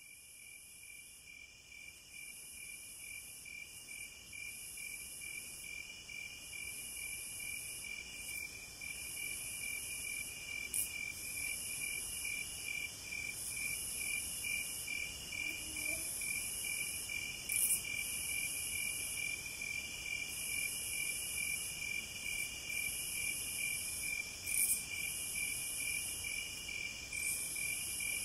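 Crickets and other insects chirping in an evening chorus: one steady, evenly pulsed chirping, over a higher buzzing in repeated phrases, with a few brief louder high chirps. It fades in over the first several seconds.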